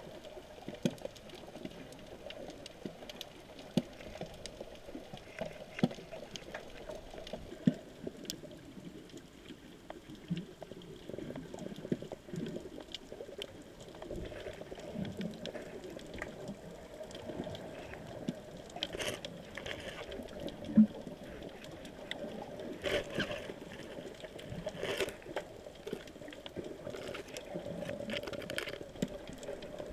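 Underwater sound picked up by an action camera in its waterproof housing: a muffled, steady water hum with scattered sharp clicks and crackles, the loudest click about two-thirds of the way in.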